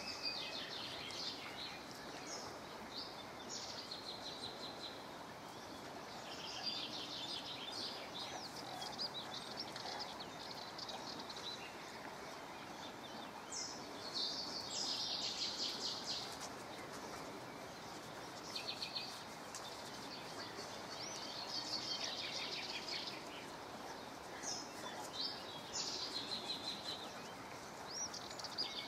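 Songbirds singing in short, high chirping and trilling phrases that come every few seconds, over a steady background hiss.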